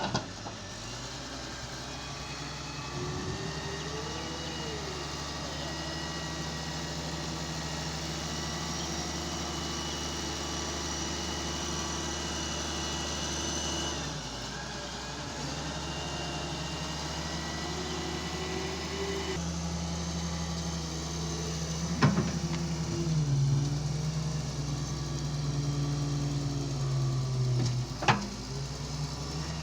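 A heavy vehicle's engine running steadily. Its note shifts about halfway through and again a little later, and two sharp knocks come near the end.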